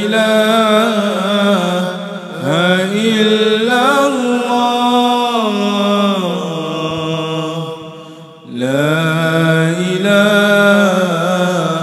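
Nazam, an Arabic devotional chant, sung in long drawn-out phrases whose held notes glide up and down. The singing breaks off briefly about two seconds in, fades out about eight seconds in, and a new phrase begins at once.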